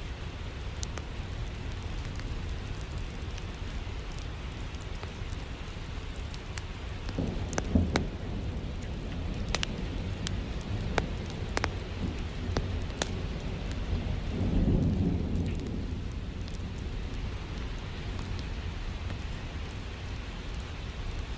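Steady rain with two rolls of thunder: one with a sharp crack about a third of the way in, the other about two-thirds through. Scattered sharp crackles run throughout.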